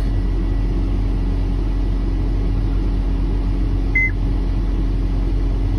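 John Deere 331G compact track loader's diesel engine running steadily, heard from inside the cab as a low drone. About four seconds in, the cab monitor gives one short high beep as a menu button is pressed.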